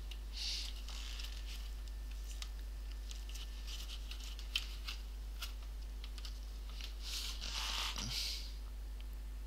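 Plastic laptop case (HP 250 G5) being pried at by hand: scattered small clicks and two short scratchy scrapes, about half a second in and near the end, over a steady low hum.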